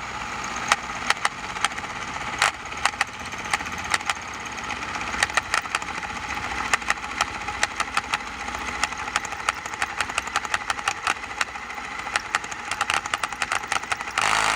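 Power drill boring out a broken bolt hole in steel with a well-worn, not very sharp bit: a steady motor-and-cutting grind with many irregular sharp ticks. It cuts off suddenly near the end.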